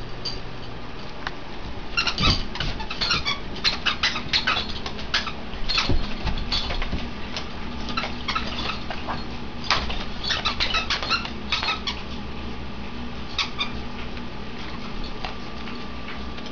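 A greyhound chewing a squeaky dog toy: quick, sharp squeaks in rapid clusters, starting about two seconds in and dying away after about twelve seconds, with a few more squeaks shortly after.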